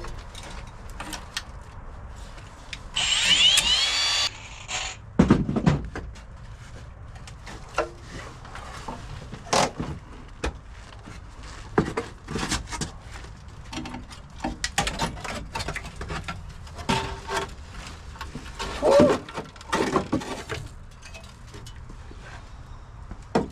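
Work on a car's rusted steel floor: scattered knocks, clanks and scrapes of metal and tools. A brief shrill screech comes about three seconds in, and a heavier thump follows about two seconds later.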